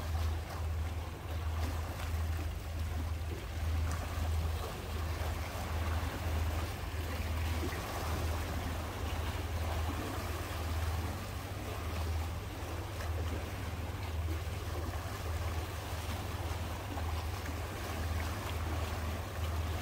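Small sea waves lapping and washing against shore rocks, with a low, uneven rumble of wind on the microphone.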